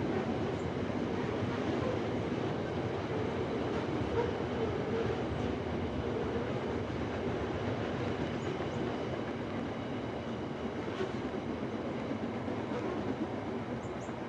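A Qube steel freight train rolling past, a steady rumble of steel wheels on the rails with a few faint clicks over the joints, slowly getting quieter.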